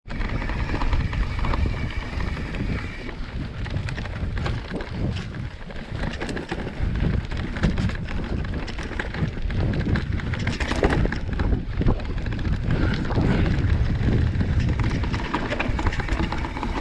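Wind buffeting the microphone as a steady low rumble, with scattered small clicks and rattles throughout.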